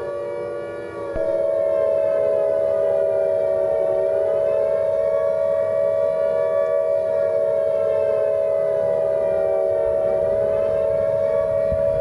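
Civil defense siren wailing, its pitch slowly sinking and rising again, with a loud steady tone joining in about a second in.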